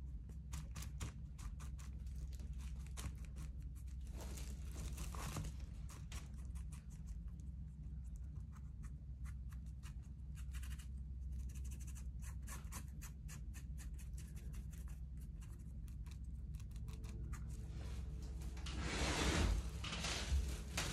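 Rapid scratchy strokes of a painting tool working acrylic paint across a surface, over a steady low hum. A louder rasping stretch comes near the end.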